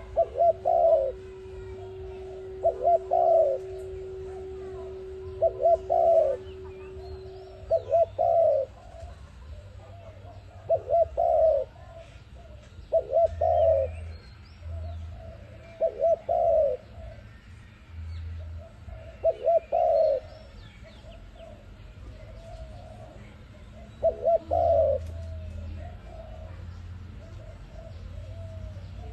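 A dove cooing in short repeated phrases of a few notes each, about nine phrases coming every two to three seconds with one longer pause.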